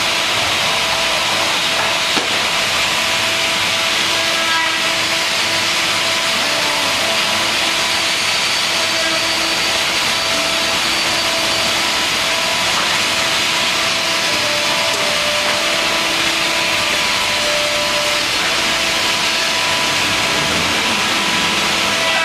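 C.R. Onsrud CNC machining center running, a steady loud hiss of spindle, cutting and extraction noise, with faint tones underneath that shift in pitch now and then.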